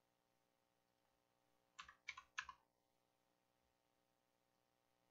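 Three quick computer keyboard keystrokes a little under two seconds in, as a value is typed into a field. Otherwise near silence with a faint steady hum.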